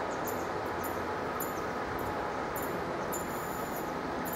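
Heavy freight train's diesel locomotives working hard up the bank out of sight, a steady distant rumble with a faint whine. Short high chirps repeat about twice a second over it.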